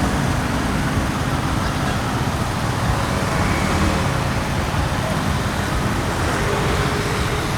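Steady, loud street noise of vehicle engines and traffic.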